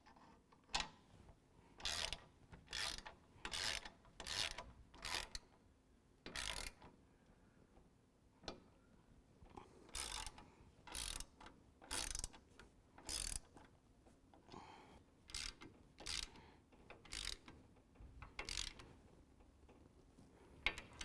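Hand socket ratchet with a 15 mm socket tightening bolts on a steel bumper bracket: a short burst of ratchet clicking on each swing, about one a second, in two runs with a pause of a few seconds between them.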